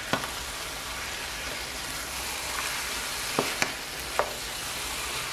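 Chicken livers and sliced onions sizzling steadily in a frying pan as they are stirred with a wooden spoon, with a few sharp clicks, three of them close together a little past halfway.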